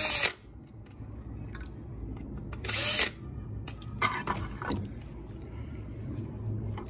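Cordless drill-driver running in short bursts as it backs screws out of a pressure switch: one brief run right at the start, the loudest of about half a second around three seconds in, and a weaker one about four seconds in, with small clicks and rattles of the part being handled between.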